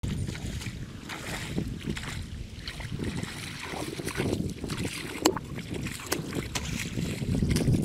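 Wind buffeting the microphone over the sloshing and splashing of shallow muddy water as someone wades and gropes in it by hand. A few sharp clicks come about five to six and a half seconds in.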